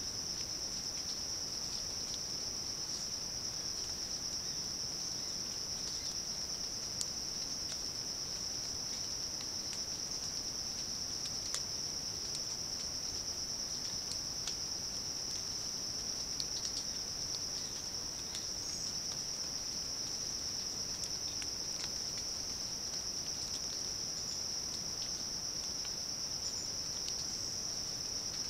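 Crickets calling in one steady, high-pitched trill that runs unbroken, with a few faint clicks over it.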